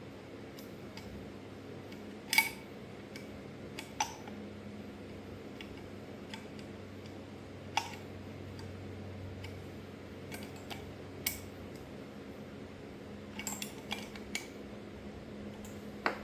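Scattered light clinks and taps of small metal distributor parts and hand tools being handled on a Delco distributor, irregular and a few seconds apart, over a steady low hum.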